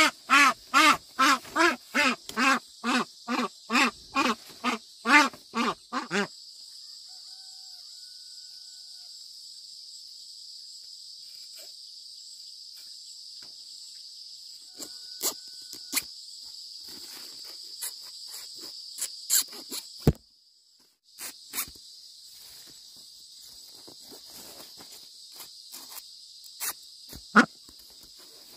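A duck quacking in a fast series, about three quacks a second, stopping about six seconds in. Then a steady high chirring of insects, crickets among them, with scattered light clicks; the insect sound drops out briefly about twenty seconds in.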